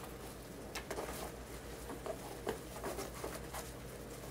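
Faint rustling and light scattered taps as a plastic-bagged jar form is worked into a dry suit's sleeve, over a low steady hum.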